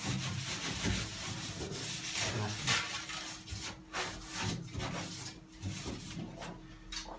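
Irregular rubbing and scraping with light knocks, the sound of metal parts being handled on a workbench.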